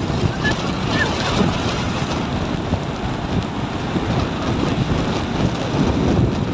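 Strong cyclone wind blowing steadily and buffeting the microphone, a continuous rushing roar that rises and falls with the gusts.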